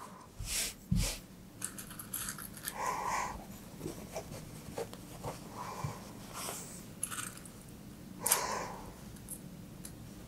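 Fabric rustling and crinkling in a few short bursts as layers of cloth are smoothed and pinned together, with small scattered clicks.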